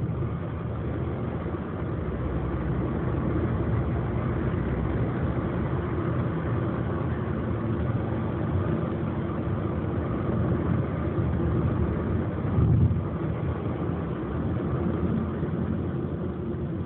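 Steady engine and road noise heard from inside a moving taxi, with a brief louder low rumble about three-quarters of the way through.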